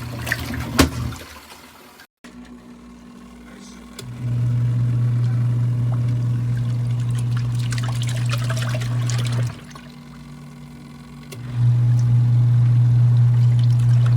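ZENY portable mini washing machine's wash motor humming as it churns water and clothes. It runs for about five seconds, stops for about two, then starts again, as the wash cycle turns back and forth.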